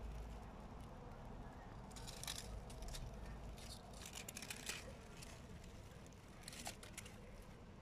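Faint, intermittent rustling and crackling of dry leaves and moss substrate, in short bursts a few times, over a low steady hum.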